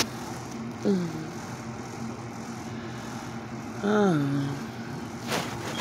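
A woman's two short wordless murmurs, each falling in pitch, about a second in and again around four seconds in, over a steady low hum, with a few clicks near the end.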